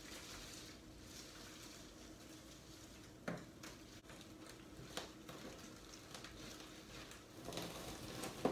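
Faint rustling and crackling of potting soil and pothos leaves being handled in a pot, with a couple of light clicks about three and five seconds in and busier rustling near the end.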